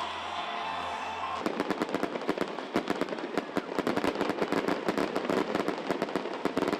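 Fireworks going off in a dense, rapid crackle of sharp pops, many a second, starting suddenly about a second and a half in.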